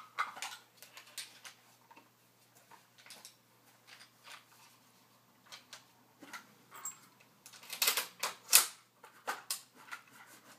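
Mechanical clicks and clacks of empty firearms being handled in dry-fire practice: an AR-style rifle and a Ruger SR9c pistol worked through magazine changes, slide and bolt actions and trigger clicks. A quick run of louder knocks comes about eight seconds in.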